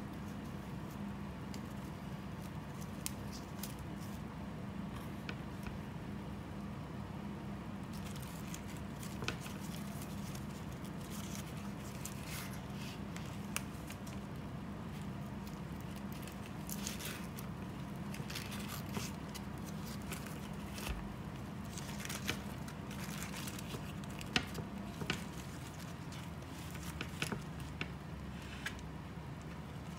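Cooked zongzi's leaf wrapping being peeled open by hand: soft rustling and scattered small crackles, most frequent in the second half, over a steady low hum.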